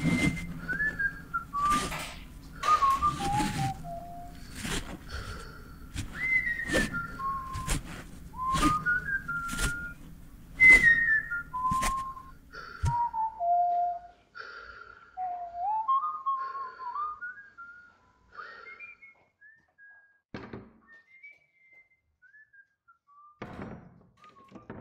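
A slow whistled tune of sliding notes, over a series of irregular knocks or thuds through the first half. After that the knocks stop and the whistling thins to a few faint, scattered notes.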